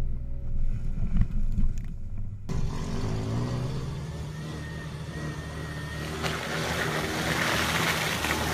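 Background music ends about two and a half seconds in; then a red Jeep Wrangler's engine runs as it drives along a muddy trail toward the microphone, with a rising hiss of tyres and splashing water near the end as it goes through the puddles.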